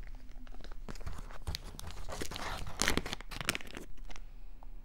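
Wax melt packaging crinkling and rustling as it is handled, a dense run of crackles with a few sharp clicks.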